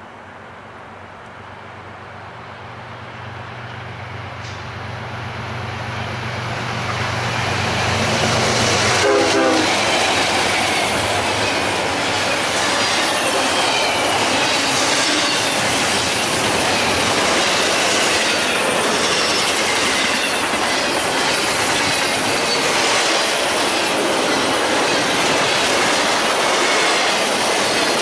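A CSX ES44DC and a Dash 8-40CW diesel locomotive approach at speed, growing steadily louder with a Nathan K5HL five-chime horn sounding, then pass with a falling pitch about a third of the way in. After that the intermodal container cars rush past at about 60 mph, with wheel clatter and high squeals from the wheels.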